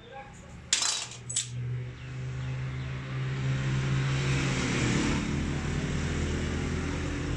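Two sharp metallic clinks of small steel pump parts being handled, about a second in. Then a steady low engine hum of a running vehicle comes up and holds.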